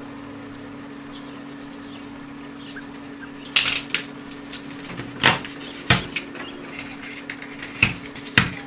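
A black plastic fan shroud being handled and trimmed with a craft knife: a run of about seven sharp clicks and scrapes from hard plastic, starting about three and a half seconds in, over a steady low hum.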